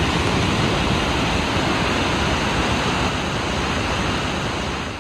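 Vøringsfossen waterfall: a loud, steady rush of falling water.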